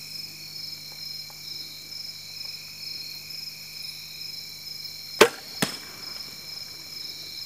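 A bow shot at a doe: one loud, sharp snap of the bowstring released a little past halfway through, then a second, softer smack about half a second later as the arrow strikes the deer. A steady, pulsing chorus of insects goes on underneath.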